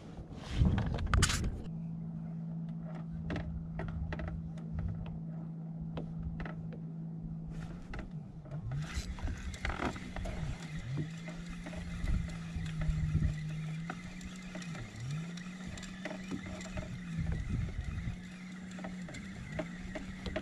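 A few sharp clicks and knocks, then a steady low motor-like hum whose pitch dips briefly and comes back every couple of seconds.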